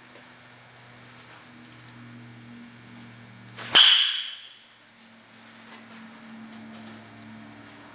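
A metal baseball bat hits a ball once, about four seconds in: a sharp crack with a short, high ringing ping. A faint low hum runs underneath.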